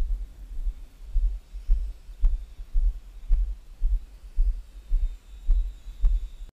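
Background music: a deep kick-drum beat, about two thuds a second, with a faint high tone coming in near the end.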